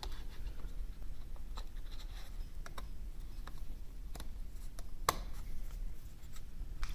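Small clicks and scratchy handling of hard plastic as a Ravemen FR160 bicycle light on a Wahoo-style mount is fitted onto the bike, with one sharper, louder click about five seconds in.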